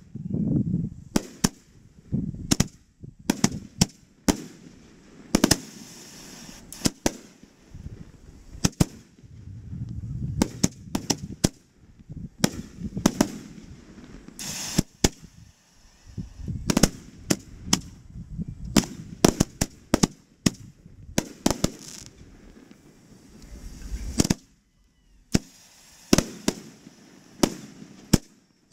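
Aerial fireworks going off overhead: a fast, irregular run of sharp bangs, many of them trailed by a low rumble.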